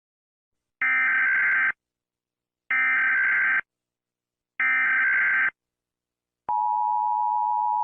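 Emergency Alert System tones: three short, identical bursts of SAME digital header data about two seconds apart, then a steady EAS attention-signal tone starting about six and a half seconds in.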